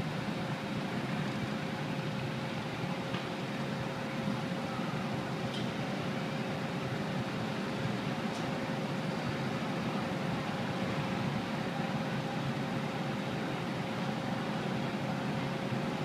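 Steady mechanical hum with a constant mid-pitched whine, running evenly throughout, with a few faint ticks.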